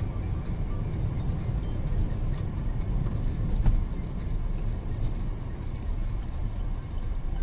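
Steady low rumble of a moving car, its road and engine noise, with one short knock about three and a half seconds in.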